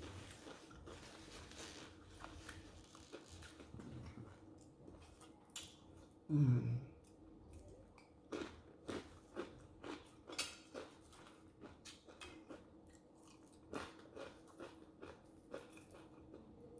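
A person chewing and biting food close to the microphone, with crunching and small wet mouth clicks throughout. About six seconds in comes a short hum that falls in pitch, the loudest sound in the stretch.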